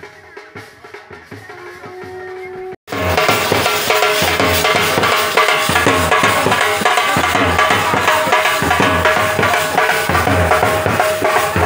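Music with drums. Quieter music with held tones breaks off about three seconds in, and loud music with a steady drum beat takes over.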